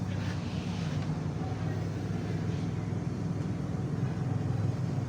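Power sander running steadily as a 180-grit Mirka Abralon pad sands a car windshield, giving a constant low hum.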